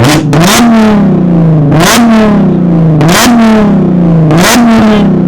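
Car engine revved in repeated short blips, about five in all, each a sharp rise in pitch that falls slowly back before the next, with a brief crack at the top of each blip.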